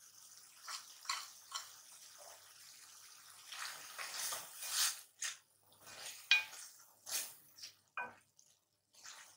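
Wooden spatula scraping and knocking against a metal karahi while stirring wet chicken pieces with green chillies, in irregular strokes; a few knocks ring briefly off the pan.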